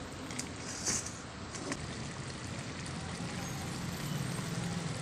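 Steady stovetop cooking noise, a pot of crab curry bubbling on the stove, with a few light clinks in the first two seconds.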